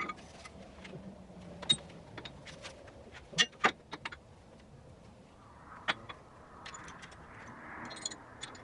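Lifting strap and its metal hardware being handled and reset: scattered light clicks and knocks, the loudest two close together about three and a half seconds in, another near six seconds.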